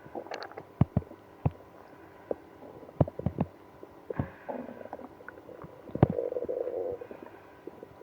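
Stomach growling and gurgling: irregular short pops and squelches, with a longer bubbling gurgle about six seconds in. These are the bowel sounds of irritable bowel syndrome after drinking milk and prune juice.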